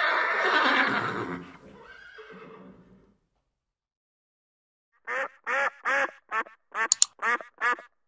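A horse whinnies loudly for about a second and a half, trailing off by about three seconds. After a short silence, a duck starts quacking in a quick, even series of short quacks, about two or three a second.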